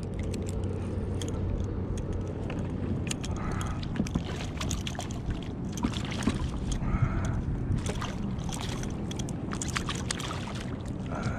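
Water slapping and sloshing against a fishing kayak's hull under a steady rush of wind on the microphone, with scattered sharp splashes and clicks as a hooked fish is played up beside the kayak.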